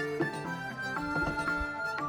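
Instrumental background music: a melody of held notes on traditional-sounding instruments.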